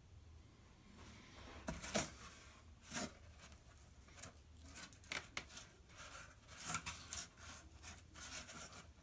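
A folded cardboard carrier being handled and opened, with a hardboard panel lifted out of it: irregular scraping and rubbing rustles of stiff cardboard, loudest about two and three seconds in.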